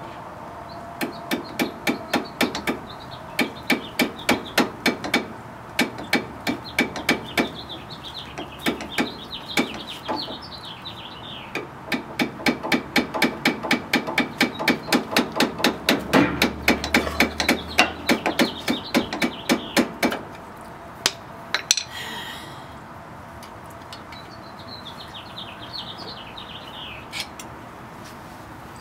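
Hand-tool work on a Jeep Wrangler JK's shock mount: runs of sharp metallic taps, about four a second, in spells of a few seconds with short pauses, stopping about two-thirds of the way through. Birds chirp in the background.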